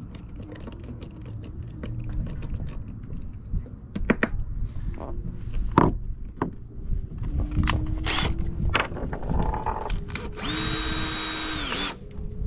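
A handful of sharp knocks and clicks, then a cordless drill/driver runs at a steady speed for about a second and a half near the end and stops abruptly.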